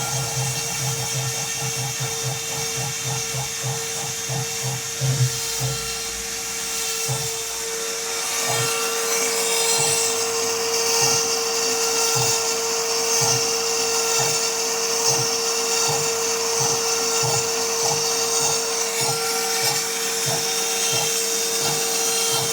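Homemade CNC router carving plywood: the spindle runs with a steady whine and a cutting hiss, and the axis motors make repeated short low pulses as the tool moves.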